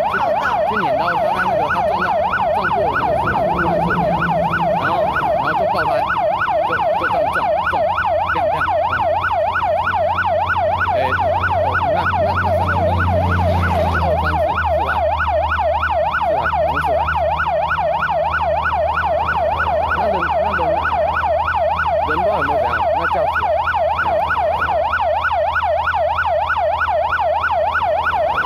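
Emergency-vehicle siren running in a fast, steady warble, sweeping up and down about three times a second. A low engine rumble joins it about a third of the way in.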